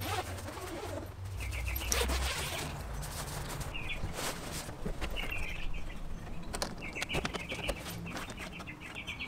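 Inspired Overland rooftop tent being unlatched and lifted open by hand: scattered clicks and knocks from its latches and frame, with rustling as the canvas unfolds. A bird chirps in short repeated calls throughout.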